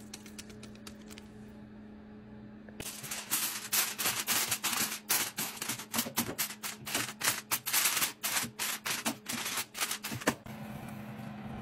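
Aluminium foil crinkling and crackling in quick, irregular clicks as it is pressed and crimped by hand over a glass baking dish, starting about three seconds in and stopping near the end.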